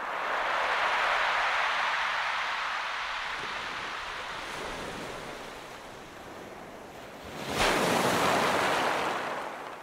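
Sea waves washing in: a long swell that slowly ebbs away, then a second wave breaking more sharply about three-quarters of the way through and washing back.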